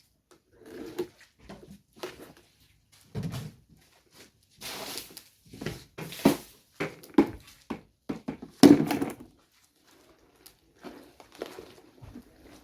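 Irregular knocks, thuds and clatter of handling, with a short noisy rush around five seconds in and the loudest knock about nine seconds in.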